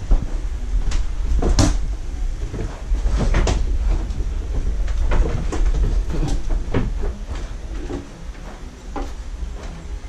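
Irregular knocks and clatter, about a dozen, over a steady low rumble: handling noise as a black plastic laundry basket is held aloft and moved about with a body-worn camera. The sharpest knock comes about a second and a half in.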